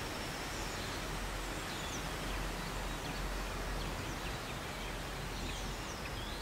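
Steady outdoor background noise with a few faint, scattered bird chirps.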